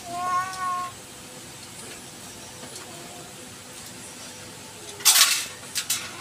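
A cat meows once briefly, then faintly again about three seconds in. About five seconds in there is a loud noisy burst lasting about half a second, with two shorter ones right after it.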